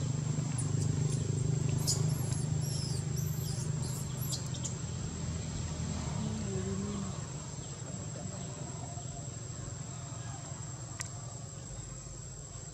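Forest ambience: a steady high-pitched insect drone, with a run of high twittering chirps over the first few seconds, over a low hum that fades about six seconds in.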